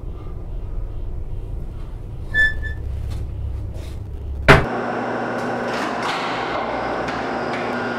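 Passenger elevator: a short electronic beep about two and a half seconds in. Then comes a sharp knock, after which the steady mechanical hum and rush of the elevator car takes over, with a few steady tones in it.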